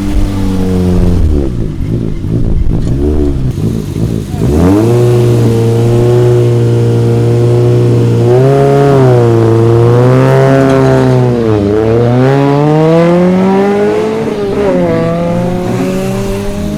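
Competition car engine running hard under load: its pitch wavers low at first, climbs sharply about four seconds in and holds high, then drops and climbs again twice as the car is driven through shifts and braking.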